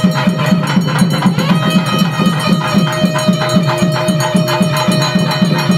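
Temple music during the arati: a drum beating a fast, even rhythm of about four to five beats a second, with sharp metallic strokes over it and a steady held tone.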